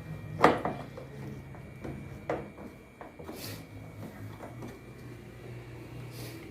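Tool noises on a washing machine's metal housing: a sharp knock about half a second in, then lighter clicks and a short scrape as a 10 mm L-wrench is fitted to a bolt and turned.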